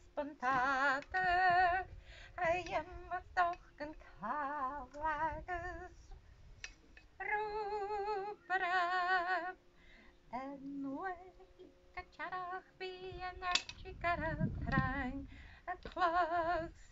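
A woman singing unaccompanied, in phrases with long held notes and a wide vibrato.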